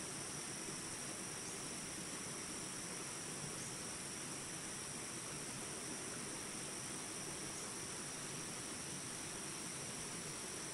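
Steady rush of flowing water, with a continuous high-pitched insect chorus, like crickets, over it.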